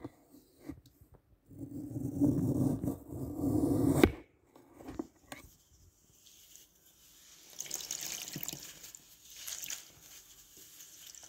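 Glitter-coated floral foam crushed by hand: a dense crunching for a couple of seconds that ends in a sharp crack about four seconds in. Later, wet, soaked foam is squeezed and crumbled with fizzy, crackling squishes.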